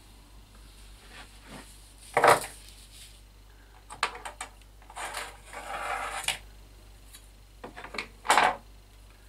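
Tools and materials handled on a workbench: a few sharp knocks and clicks, the loudest about two seconds in, and a rubbing scrape lasting about a second near the middle.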